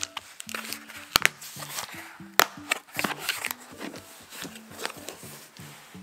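Background music with a low, stepping melody, over the crackle, scrape and tear of a cardboard box being opened by hand. Sharp snaps of the cardboard stand out about a second in and again near the middle.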